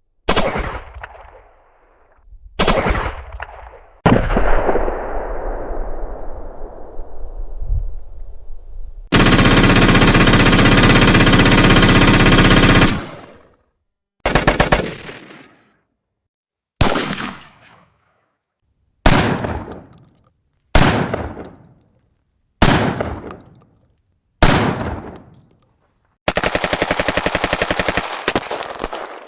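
A sequence of gunfire sound effects: a few sharp shots with long echoing, rumbling tails, then about nine seconds in a sustained burst of automatic machine-gun fire lasting around four seconds. After it come six short bursts, each about two seconds apart and fading out, and near the end another steady run of rapid automatic fire.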